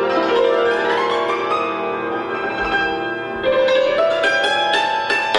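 A Romanian concert cimbalom (țambal) played solo with hammers, without accompaniment. Fast runs of struck, ringing notes sweep upward twice, once about a second in and again past the middle.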